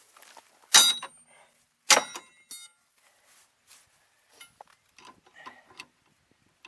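Two hard metal-on-metal strikes about a second apart, each ringing briefly, then a lighter knock and scattered small clinks, as work goes on to free the seized rear wheel of a 2002 Chevy Malibu.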